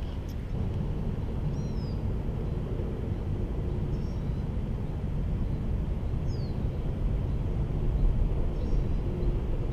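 Steady low outdoor rumble, like wind on the microphone or distant traffic, with a bird's short downward-sliding chirps about every two to three seconds.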